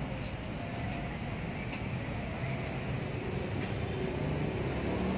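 Steady low rumble of road traffic, an even city-street background noise that grows slightly louder toward the end.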